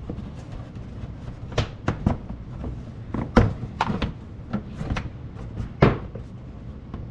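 Irregular clicks and knocks of hands working the car's plastic inner fender liner and bolts, about ten sharp ones, with the loudest near the middle and toward the end.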